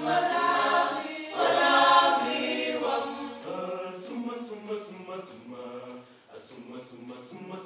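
Mixed choir of men and women singing together, loud for about the first three seconds and then softer, with the hiss of sung consonants coming through in the quieter part.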